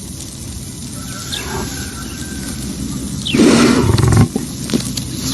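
Lion sneezing: one sudden, noisy burst about three seconds in, lasting under a second.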